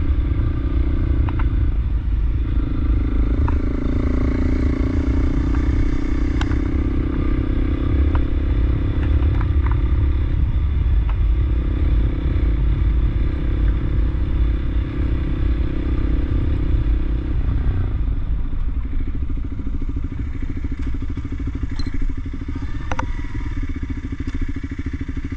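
Honda CRF300L single-cylinder engine running at a steady cruise on a gravel road, with a heavy low rumble of wind and tyres and a few sharp ticks. The engine note shifts a few times and drops after about 18 seconds as the bike slows down.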